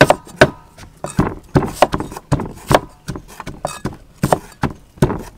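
Cleaver cutting shallots on a wooden chopping board: irregular sharp knocks of the blade striking the board, about two or three a second.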